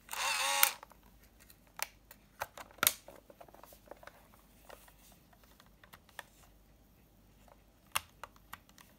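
Plastic compact 35mm film camera being handled during film loading: a short rasping drag as the film leader is pulled across the film gate, then a series of sharp plastic clicks, the loudest about three seconds in as the back is shut, and a few more near the end.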